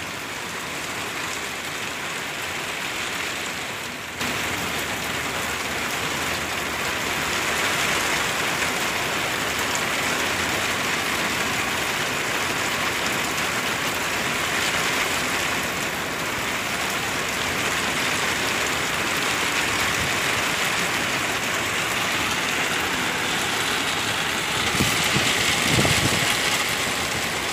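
Heavy rain falling steadily, a dense hiss. It steps up in level about four seconds in and swells louder, with a low rumble, near the end.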